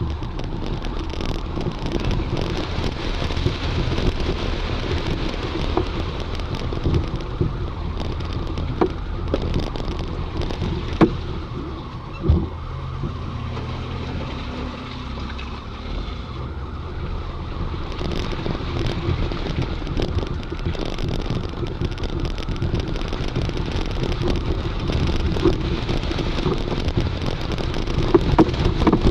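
An off-road 4x4 driving slowly over a rough, wet sandy track, heard from inside the cab: a steady engine hum under a rattling, bumping body, with two sharp knocks about eleven and twelve seconds in.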